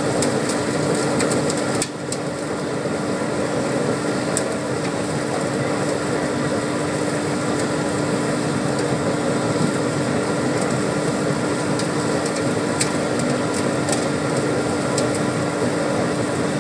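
Haiqi biomass sawdust burner firing: a steady roar of flame and combustion-air blower with a constant hum, and scattered sharp ticks over the top.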